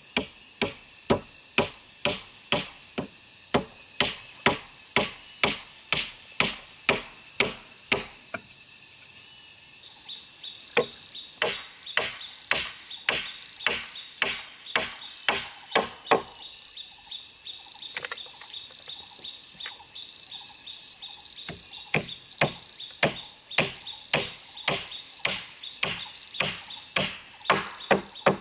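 Hammer blows on wood, about two a second, driving nails, in runs broken by two short pauses. From about ten seconds in, an insect calls steadily in the background with a repeating high chirp.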